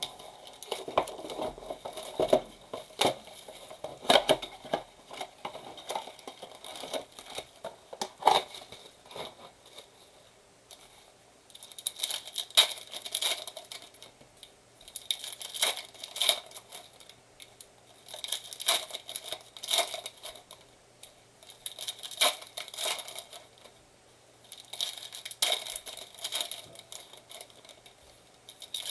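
Plastic wrap and foil trading-card packs from a Prizm football blaster box crinkling and tearing as the box is unwrapped and the packs ripped open. Sharp crackles and taps at first, then bright crinkling in bursts every few seconds.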